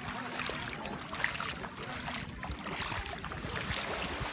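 Small waves lapping and washing over shallow water at the shoreline, a steady wash of water with a low, uneven rumble underneath.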